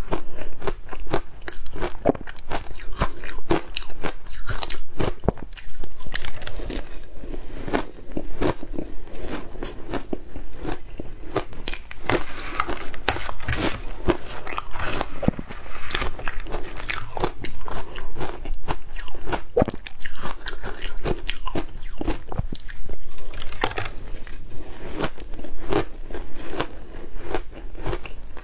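Ice being bitten and chewed, a rapid irregular run of crisp crunches and crackles that goes on without a break.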